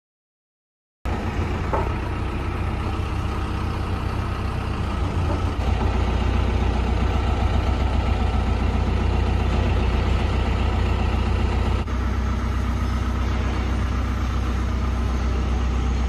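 Doosan excavator's diesel engine running steadily with a deep low hum, starting abruptly about a second in.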